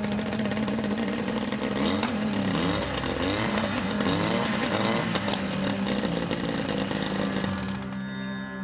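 Outboard motor running with a steady hum, revved up and down several times in quick succession in the middle, with some clattering.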